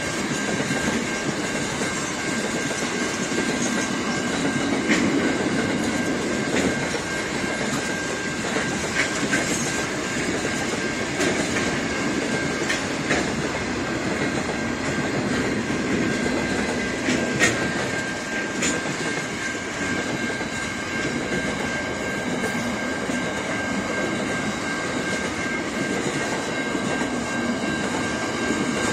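Freight train wagons rolling past close by, a steady rumble and clatter of wheels on the rails with a few sharp clicks. A thin, steady high-pitched tone runs over it.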